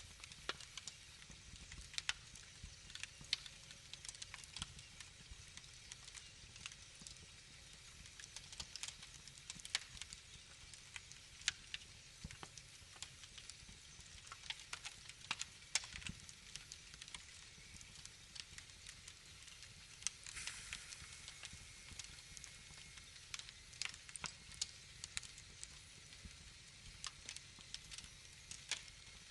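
Wood fire in a fireplace crackling, with irregular sharp pops over a faint steady hiss and a short hiss about two-thirds of the way through.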